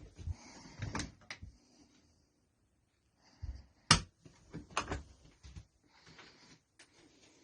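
A series of knocks and clunks, like a door or drawer being handled, with a loud bang about four seconds in and a few quicker knocks just after it. Faint rustling lies between them.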